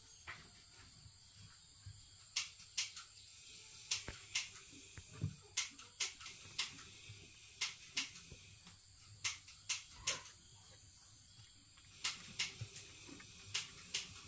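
Baby monkey sucking at the teat of a plastic feeding bottle: short, sharp sucking clicks at irregular intervals, about one or two a second. A faint steady high hiss runs underneath.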